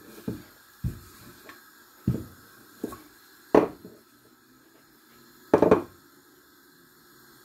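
Wooden rolling pin knocking and thudding on a kitchen worktop as chapati dough is rolled out: a handful of irregular knocks, the two loudest about halfway and near two-thirds through.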